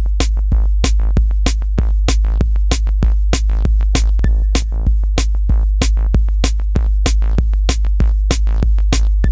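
Background music with a steady beat, about three strikes a second, over a deep bass.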